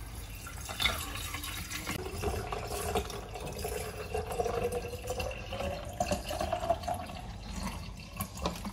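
Water poured into a glass carafe packed with ice cubes and lemon slices, the pitch of the filling slowly rising as the carafe fills, with a few sharp clicks among the ice.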